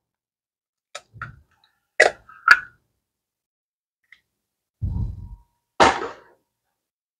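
Raw egg cracked open with three sharp taps, followed by a dull thump and a knock a few seconds later.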